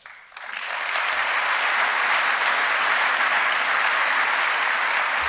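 Large audience in a chamber applauding, the clapping swelling up quickly in the first second and holding steady.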